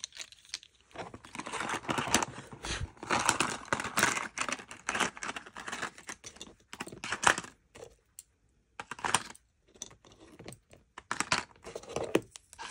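A bundle of wooden pencils clicking and clattering together as they are handled and packed into a plastic pencil box, with rustling of items being moved about. A dense run of quick clicks and rattles, thinning to scattered clicks after the middle.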